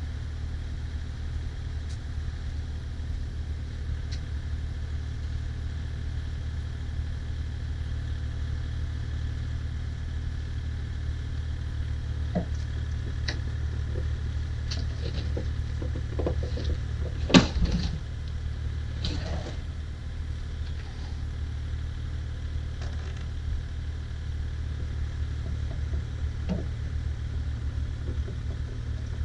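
Kubota KX040-4 compact excavator's diesel engine running steadily under light hydraulic load as it lifts and swings a plastic septic tank. Scattered clanks and knocks come in the middle, with one sharp knock about seventeen seconds in.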